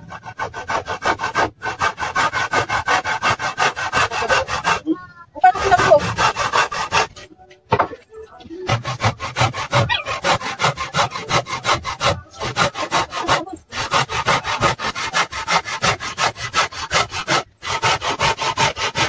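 Hand saw cutting through a wooden board with fast, even back-and-forth strokes, about four or five a second, stopping briefly a few times.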